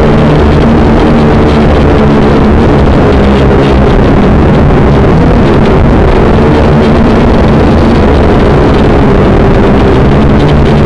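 Small quadcopter drone's motors and propellers buzzing loudly and close, the pitch stepping up and down as the drone speeds up and slows while it flies.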